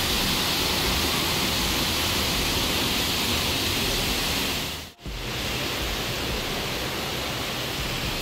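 Waterfall rushing steadily. The sound drops out for a moment about five seconds in, then carries on a little quieter.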